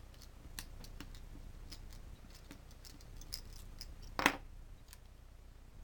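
Small precision screwdriver unscrewing the tiny screws from the front of a GU10 LED lamp's metal housing: faint scattered ticks and scrapes, with one sharper knock about four seconds in.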